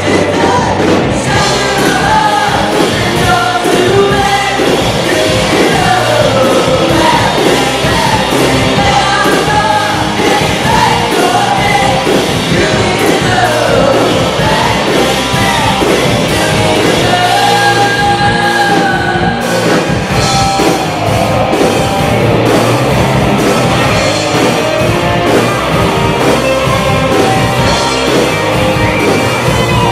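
Live rock band playing loudly and steadily: a woman singing over electric guitars, bass guitar and a drum kit.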